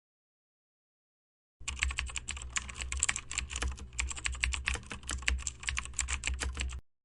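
Computer keyboard typing sound effect: rapid, irregular key clicks over a low steady hum. It starts abruptly about a second and a half in and cuts off near the end.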